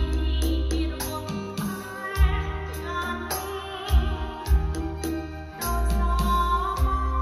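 A song with singing, deep sustained bass notes and sharp percussion hits, played back on a Harman Kardon Onyx Studio speaker as a sound and bass demonstration.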